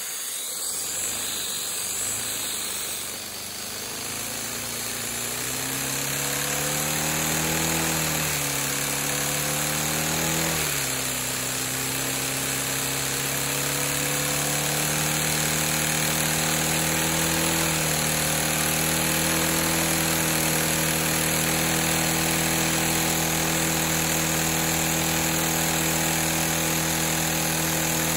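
LEGO vacuum engine running up to high speed: a buzzing hum that climbs in pitch, drops back sharply twice about eight and eleven seconds in, then climbs again and holds at high revs, over a steady rushing hiss.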